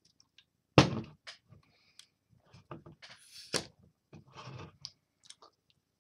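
Aluminium drink can being handled and opened: a sharp knock about a second in, then a short hiss ending in a sharp crack of the ring-pull about three and a half seconds in, followed by light clicks.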